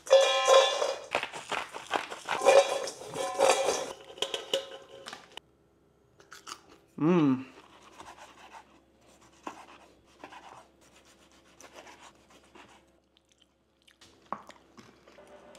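Crispy deep-fried French fries tipped from a wire mesh strainer into a stainless-steel bowl, a dense crackling rattle with the bowl ringing, for about five seconds. It then stops suddenly, and a short pitched swoop comes about seven seconds in. After that come faint clicks of a chef's knife slicing through a seared steak on a wooden board, over a low steady hum.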